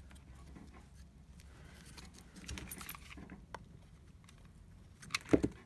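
Faint rustling and small ticks of cut cardboard and paper pieces being handled and pressed down while a hot glue gun is used, with a brief louder low sound near the end.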